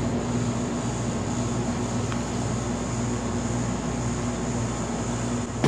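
Steady mechanical hum of a rolled ice cream cold-plate machine's refrigeration compressor and fan running, with a light tap about two seconds in.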